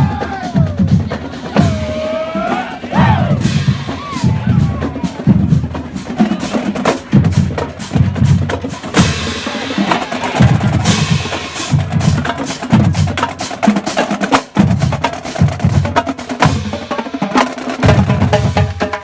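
Marching band drumline playing a percussion cadence: rapid snare-drum strikes and rolls over a steady bass-drum beat about once a second.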